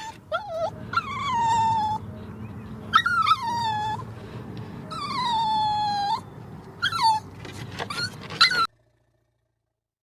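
An animal giving a series of high, whining calls: three long ones of about a second each that drop in pitch and level off, with shorter yelps between. The calls stop abruptly about eight and a half seconds in.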